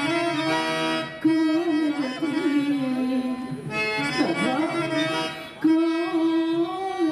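Harmonium playing long held notes as accompaniment to a Telugu padya-natakam song, with a singing voice winding in ornamented turns around them. The held notes break off briefly about a second in and again near the end, then sound again.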